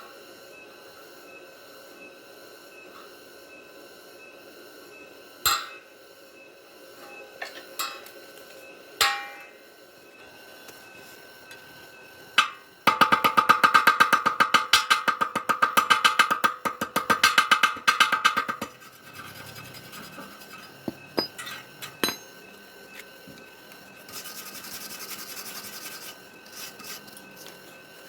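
Fast back-and-forth scraping on metal for about six seconds, the metal ringing with each stroke. A few sharp knocks come before and after.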